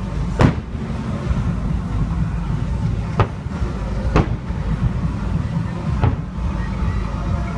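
Aerial fireworks shells bursting: four sharp bangs over a continuous low rumble, two of them about a second apart in the middle.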